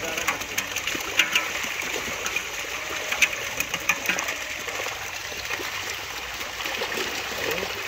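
Water splashing and churning as a mass of fish thrashes in the shallows of a pond, crowded together inside a drawn-in drag net during a harvest, with men wading and reaching in among them. Many small, quick splashes, busiest in the first half and thinning toward the end.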